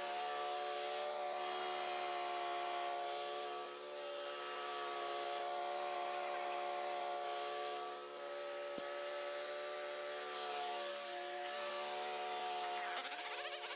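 Wood-Mizer LT15 bandsaw mill running steadily while sawing through a full-width cut in a hard maple log, a steady hum with two short dips in level. A single sharp click comes about two-thirds of the way through.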